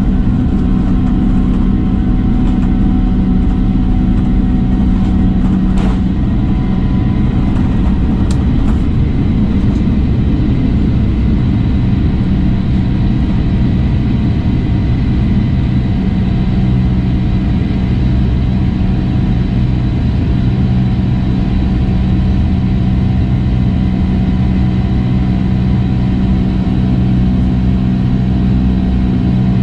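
Steady flight-deck noise of a Boeing 747-200 in the climb: a constant rush of airflow and engine noise under a low hum and a few fixed tones, with a couple of faint clicks about six and eight seconds in.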